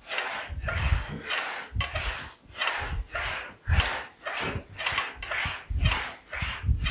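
English wheel rolling a sheet-metal fender panel back and forth, about two passes a second. Each pass is a rasping metallic roll with low thumps, as the panel is wheeled to stretch the metal into shape.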